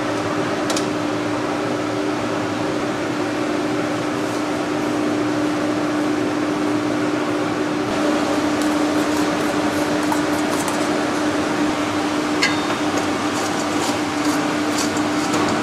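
Steady hum and whir of kitchen ventilation. About halfway through come light metallic clinks and scrapes, a metal ladle against a stainless steel bowl, with one sharper clink near the end.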